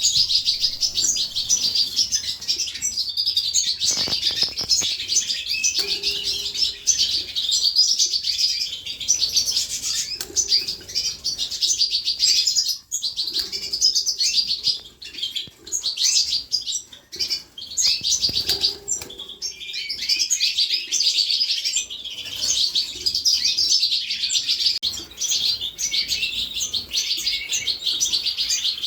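Young canaries chirping and twittering continuously in high, rapid notes, with a couple of brief low thumps.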